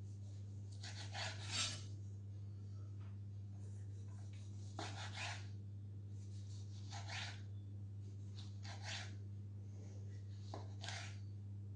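Kitchen knife slicing a tomato on a wooden cutting board: about half a dozen short cutting strokes, a second or two apart, over a steady low hum.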